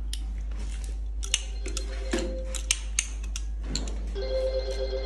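Optical fibre cleaver being worked by hand: a few sharp clicks and snaps of its hinged lid and clamps as the fibre is set and cleaved. A steady tone comes in about four seconds in, over a low hum.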